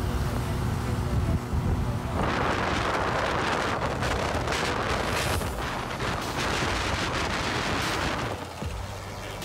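Honda motorcycle engine running at full throttle on the road, with heavy wind buffeting on the microphone from about two seconds in that eases near the end.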